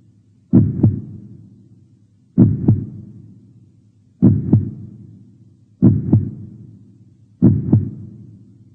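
Heartbeat sound effect: five slow double thumps in a lub-dub rhythm, each pair a little under two seconds after the last.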